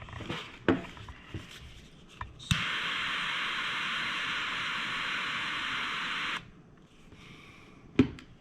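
Handheld torch clicking alight and hissing steadily for about four seconds, then shut off abruptly, burning oak shavings in a cocktail smoker. A sharp knock near the end.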